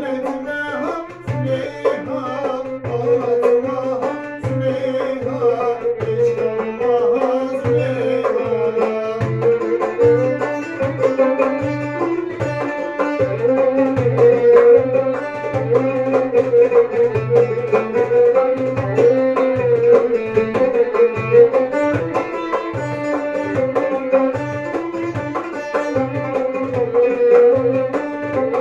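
Instrumental Turkish folk music: violin and banjo playing the melody over a steady darbuka rhythm.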